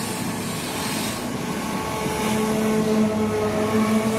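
Engine noise from a backhoe dredger at work on the water, over a steady rush of water and wind. A steady low engine hum comes in about halfway.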